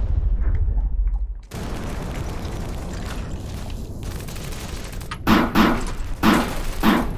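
A deep rumble for about a second and a half, then a steady background noise, then rifle fire starting about five seconds in: a string of quick, irregular shots.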